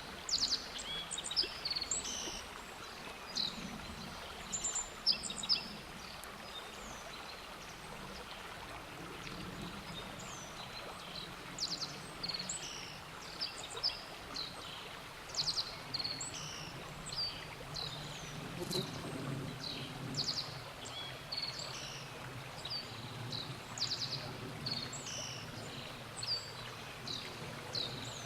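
Black-faced bunting singing: short, high phrases of a few quick notes, repeated every few seconds, over a steady low background noise.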